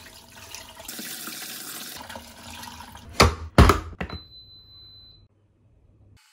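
Tap water running into a pot as rice is washed by hand. Then two loud knocks about half a second apart, followed by a rice cooker's single high beep lasting about a second as its cook button is pressed.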